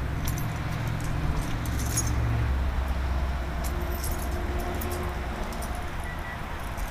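Light jingling clicks in two spells, over a low steady rumble that eases a little partway through.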